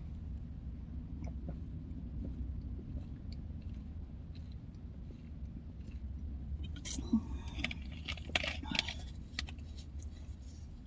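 A person chewing crunchy crackers close to the microphone, a cluster of crackling crunches starting about two-thirds of the way in, over a steady low hum.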